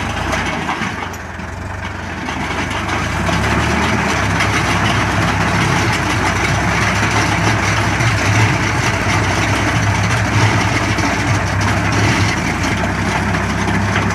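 Farmtrac 50 tractor's diesel engine running steadily, growing louder about three seconds in and holding there.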